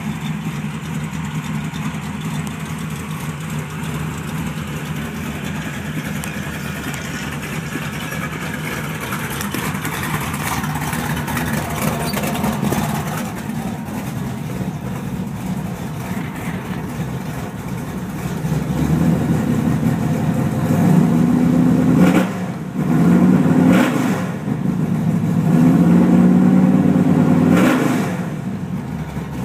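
Carbureted 383 stroker small-block V8 in a 1985 Chevy Silverado idling steadily, then revved three times in the last third, settling back to idle near the end.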